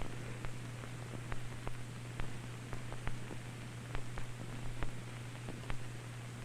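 Surface noise of an old film soundtrack: a steady hiss and low hum with scattered, irregular clicks and pops.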